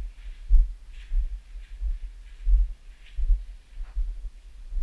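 Footsteps of someone walking, about two steps a second, heard as low thuds, each with a faint scuff.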